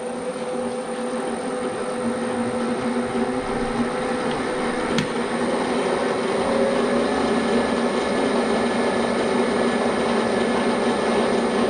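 Turret milling machine running, its spindle turning a boring head through a bore in a steel part on the automatic quill feed: a steady motor and gear hum that grows slightly louder, with one sharp click about five seconds in.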